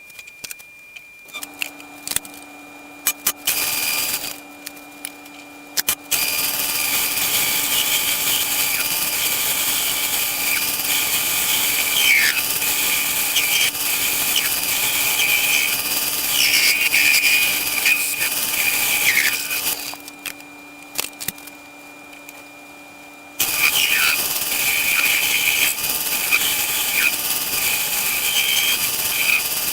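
A motor-driven machine tool cutting a piece of steel stock: a loud, harsh hiss with a steady high whine over a running motor's hum. The cutting stops for a few seconds about two-thirds of the way through, then starts again.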